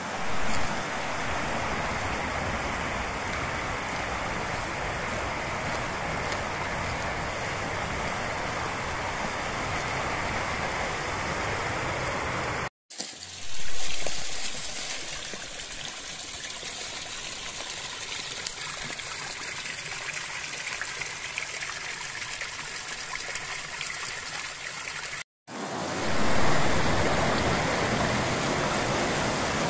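Shallow rocky mountain stream running, a steady rush of water. It cuts off suddenly twice and resumes on another stretch: a small fall splashing into a pebbly pool, then faster water rushing over rocks.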